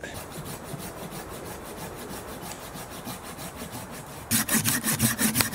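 Hand saw cutting through a dead, wind-blown ash branch with quick, regular back-and-forth strokes, turning louder about four seconds in.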